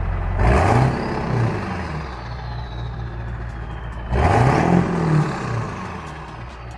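Ford 7.3 L PowerStroke turbo-diesel V8 idling through a 5-inch straight-pipe exhaust with no muffler or catalytic converters, blipped twice about four seconds apart. Each rev rises quickly and drops back to idle, and a faint high whistle falls away after each one.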